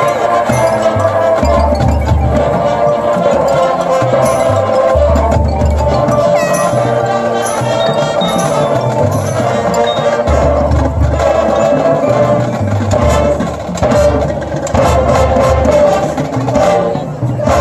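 High school marching band playing live on the field, heard from the stands: wind instruments hold chords over changing low bass notes, with percussion.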